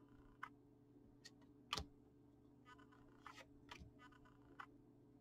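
Faint, sparse clicks and light taps of trading cards being handled and flipped through in the hands, the loudest a little under two seconds in, over a faint steady hum.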